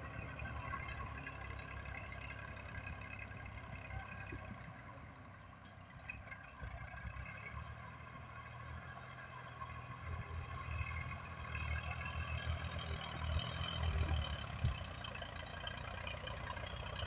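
Massey Ferguson 240 tractor's three-cylinder diesel engine running steadily as it pushes soil with a front blade. It is quieter as the tractor moves off up the mound and louder again as it comes back near, with a single knock near the end.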